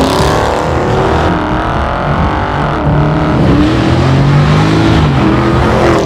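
A car engine revving, its pitch falling and rising as it runs hard.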